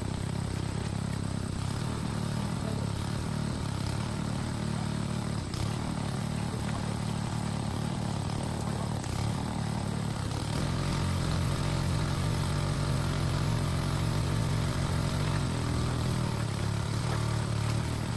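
Small petrol-engine water pump running steadily while draining a river, its low engine note growing a little louder about ten seconds in.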